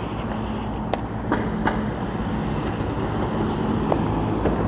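City street noise: a steady traffic rumble with a low hum, broken by three sharp clicks between one and two seconds in.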